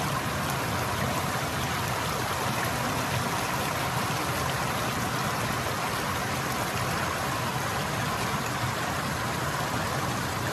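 Mountain stream rushing over small rock-ledge cascades: a steady, even rush of water.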